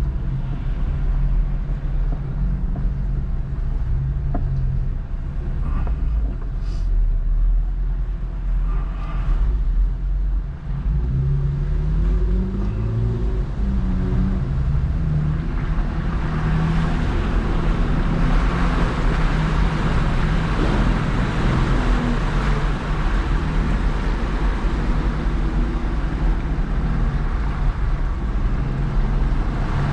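Off-road vehicle engine running and revving up and down, with a rushing noise building from about halfway through.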